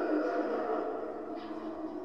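Giant zombie animatronic's activation soundtrack playing from its built-in speaker: a deep voice track, almost like roaring, that tapers off toward the end.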